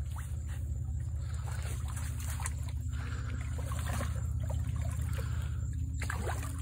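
Water splashing and trickling at the shoreline as a caught redfish is eased back into the water to be released. A steady low hum runs underneath.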